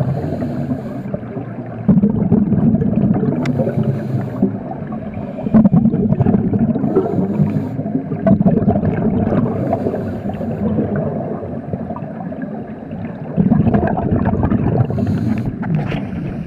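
Scuba regulator exhaust underwater: exhaled breath bubbling out in loud gurgling bursts every few seconds, with a faint high hiss between them.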